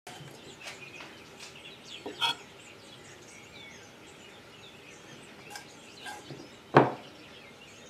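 Faint birdsong in the background, with a few short clinks of a metal fork and spoon against a ceramic plate; one sharp clink near the end is much the loudest.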